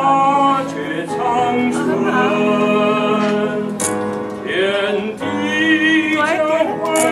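Baritone voice singing a slow Chinese song in long held notes with vibrato, over a sustained keyboard accompaniment.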